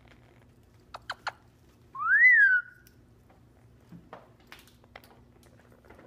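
Red-crowned Amazon parrot giving one loud whistle that rises and then falls back, about two seconds in. Three quick clicks come just before it, and a few faint clicks follow.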